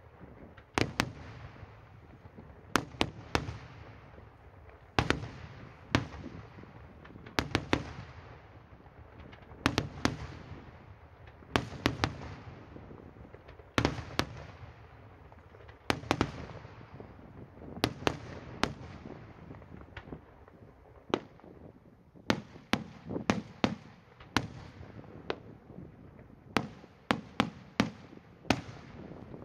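Daytime aerial fireworks shells bursting overhead: sharp bangs, singly and in quick clusters of two to four, every second or two, each trailing off in a low echoing rumble.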